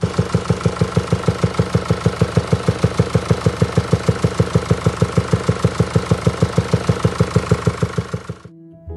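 2017 Mercedes-Benz E-Class running at idle with a loud, even, rhythmic knocking at about six beats a second: the horrible noise that needs fixing. It cuts off suddenly near the end.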